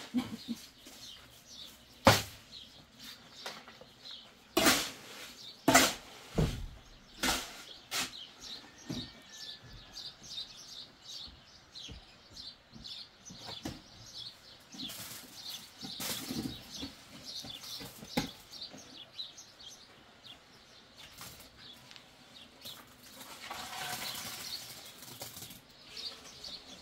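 Building work by hand: a run of sharp knocks and taps, most of them in the first eight seconds and a few more later, with a longer scraping sound near the end. Small birds chirp throughout.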